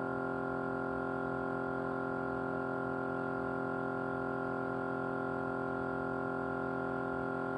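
Small motor running with a steady vibrating hum that holds one pitch and one level throughout.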